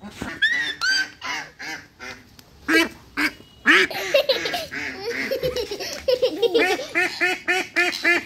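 Domestic duck quacking repeatedly while it is chased and caught, ending in a fast, even run of about four quacks a second.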